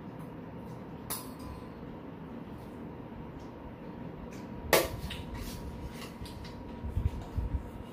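Metal spoons clinking and scraping against stainless steel bowls: a sharp clink about a second in, then a louder ringing clink near the middle followed by several lighter taps. A few dull low knocks come near the end.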